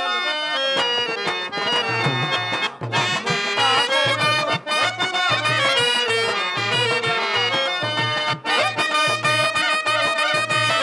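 Harmonium playing a melody over a steady, regular low drum beat: the instrumental accompaniment of a Telugu stage drama.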